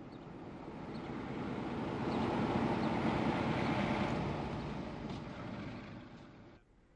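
CIE A-class diesel locomotive and its passenger train passing close by. The rushing noise swells to a peak about three seconds in, fades, and cuts off suddenly shortly before the end.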